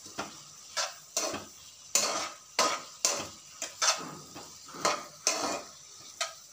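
A metal spatula scrapes and knocks against a metal kadai as a cabbage, onion and tomato masala is stirred and sautéed. About a dozen strokes fall at roughly two a second.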